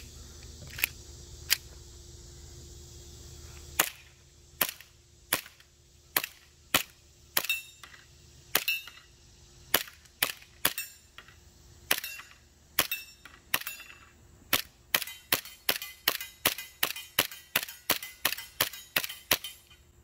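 Jag Arms GMX1B Hi-Capa green-gas blowback airsoft pistol firing a string of shots, each a sharp crack with the slide cycling. The shots come unevenly at first, then quicker, about two a second, near the end. With this magazine it ran a little better but still had some trouble cycling.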